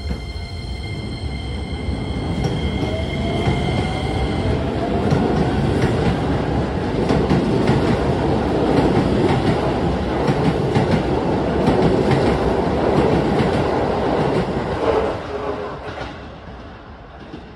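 Keisei 3000 series electric train pulling out of a station. Its motors give a steady high whine and a tone that rises in pitch over the first few seconds as it accelerates. The wheels then clatter over the rail joints, growing louder as the cars pass, and fall away about fifteen seconds in as the last car clears.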